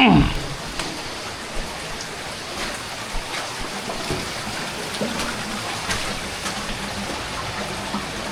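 Water running and dripping in a flooded cave, a steady rushing with scattered small splashes and knocks. A short, loud sound falls steeply in pitch right at the start.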